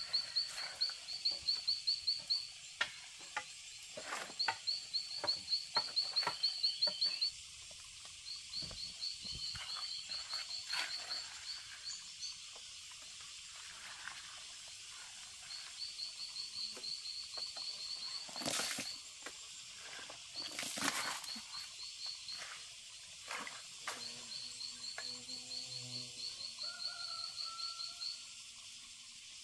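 A small animal's high-pitched rapid trilling call, repeating in bursts of one to three seconds with short gaps. Under it come light rustles and knocks of wet laundry being handled and hung on a bamboo rail, with two louder flaps of cloth about two-thirds of the way through.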